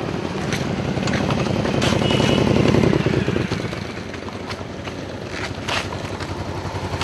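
Cruiser motorcycles running at low speed as they ride close past, with a pulsing engine note that swells to its loudest about two to three seconds in and then eases off.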